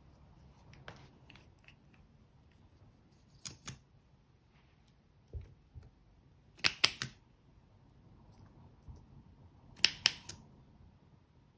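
A few sharp clicks and snaps in small groups, the loudest double clicks about seven and ten seconds in.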